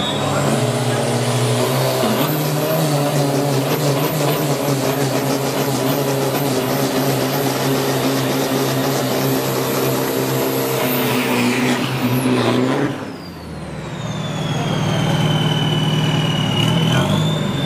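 Isuzu D-Max 3000 turbo diesel race pickup doing a burnout: the engine is held at high, steady revs while the rear tyres spin in smoke. After about thirteen seconds the revs drop, the engine settles to running low and steady, and a high whine slides down in pitch.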